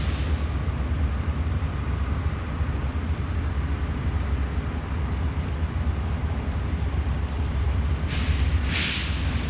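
Steady low rumble of a diesel-hauled freight train approaching in the distance, with a faint steady high whine over it. About a second before the end come two short, sharp hisses.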